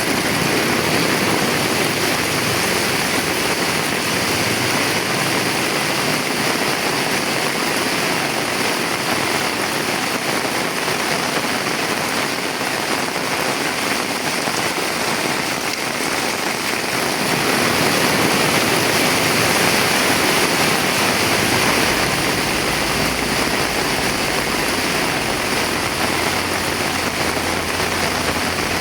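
Heavy rain pouring steadily. A low rumble joins about two-thirds of the way through.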